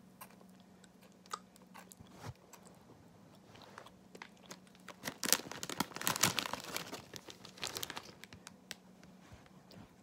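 Potato chips crunching, with scattered crackles and crinkles and a dense run of crunching about five to seven seconds in.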